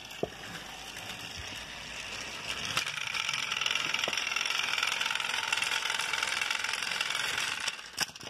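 Battery-powered toy train motors whirring steadily as the toy engines drive along plastic track, louder from about two and a half seconds in. The whirring dies away near the end, followed by a few sharp clicks.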